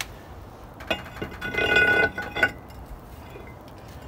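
Steel brake disc from a Ford Focus rear brake kit being slid over the wheel studs onto the hub. A click about a second in, then about a second of metal scraping and clinking with a ringing tone.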